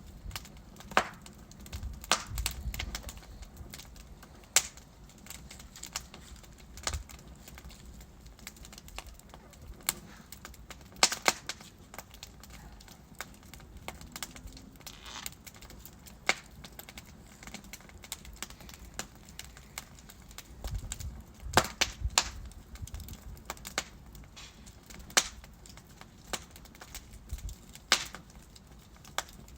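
Burning wood logs crackling in a fireplace: irregular sharp pops and snaps every second or two, some in quick clusters, over a soft low rumble of the flames.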